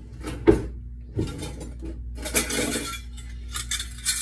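Kitchen utensils and a metal measuring cup knocking and clinking, with a sharp knock about half a second in and another just after a second, then a stretch of rustling and small clatters.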